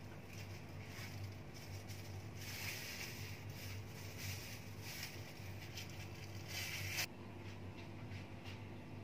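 Faint steady low hum with a few soft rustling swishes, the loudest about seven seconds in, which cuts off abruptly.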